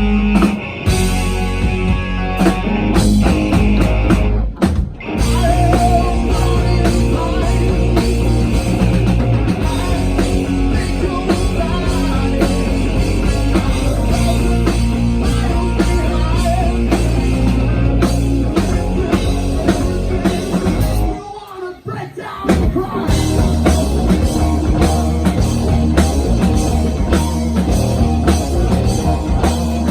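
Rock band playing live: drums, guitar and bass with some singing, breaking off briefly about five seconds in and again just after twenty seconds in.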